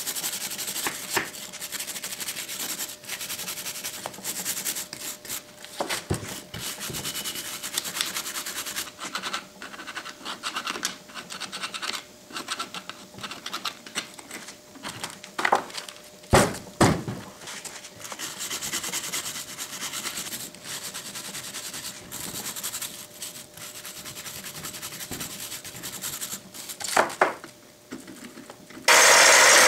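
Hand wire brush and steel scraper scratching old paint, grease and dirt off a cast-iron machinist vise body, with a few knocks of the casting and tools against the bench. Near the end a bench grinder is suddenly heard running loudly.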